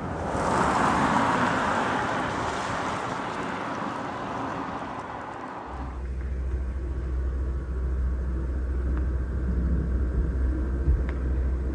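Road vehicle noise: a broad rush that swells at the start and fades away over about six seconds, then, after an abrupt change, a steady low rumble.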